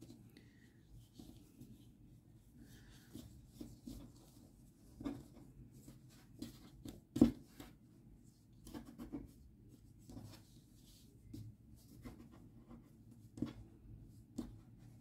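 Faint rubbing and light taps of hands handling a crocheted yarn toy spider on a table, arranging its legs, with one sharper knock about seven seconds in.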